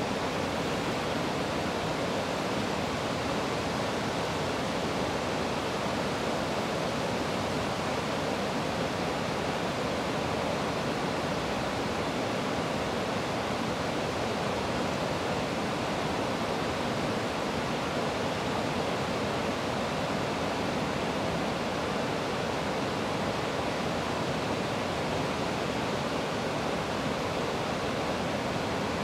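Steady rushing of river water pouring over a weir.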